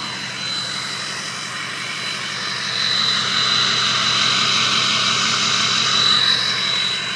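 Straight-piped Ford F-250 diesel with its turbocharger whistling: a steady high whine over the engine and exhaust, swelling louder from about three seconds in and easing off near the end.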